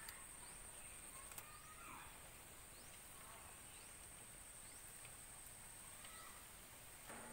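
Faint riverside ambience: a steady high-pitched insect drone, with a few faint bird chirps and a couple of small clicks.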